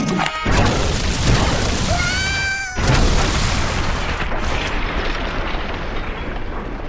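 Designed sci-fi blaster explosions from a robot's arm cannon: a loud blast about half a second in, a short rising electronic whine, then a second blast near three seconds whose rumble dies away slowly.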